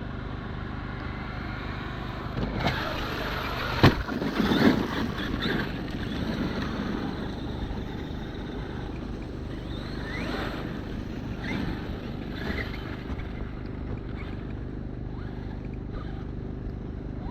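Traxxas X-Maxx RC monster truck's brushless motor running and winding up and down in pitch several times, with one sharp knock about four seconds in.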